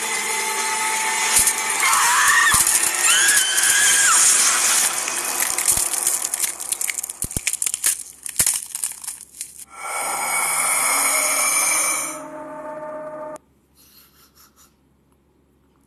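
Horror film soundtrack at its climax: loud harsh scraping, grinding noise broken by rapid sharp clicks, then a held tone that cuts off suddenly about thirteen seconds in, leaving near quiet.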